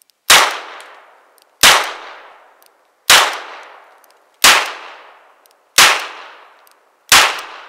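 Llama Martial .38 Special revolver fired six times at a steady pace, a shot about every second and a third, emptying its six-shot cylinder. Each shot is loud and trails off in a fading echo before the next.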